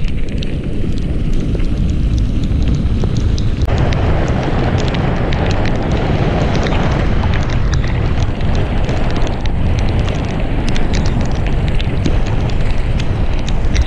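Wind buffeting the microphone of a camera on a downhill bike, over the hiss and crunch of tyres rolling on wet gravel with scattered sharp clicks from stones and the bike rattling. The tyre hiss grows louder about four seconds in.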